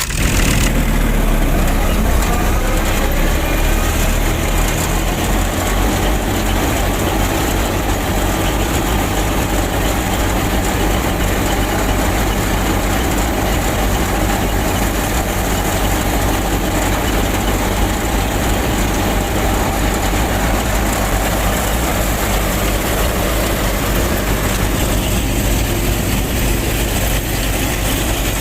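Machine running steadily, an even engine-like noise with a strong deep hum that starts abruptly.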